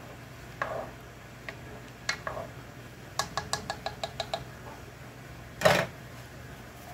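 Kitchen spoon knocking against a pot and a tin can: a quick run of light taps, then one louder clatter near the end.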